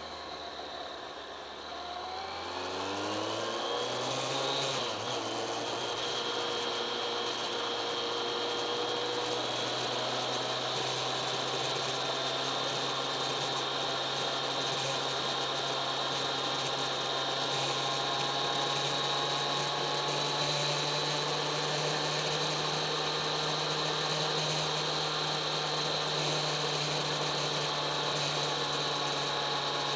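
Kawasaki ZX-10R inline-four sport bike engine under way, with wind noise: it picks up speed with a rising pitch for a few seconds, changes gear about five seconds in, then holds a steady cruising note.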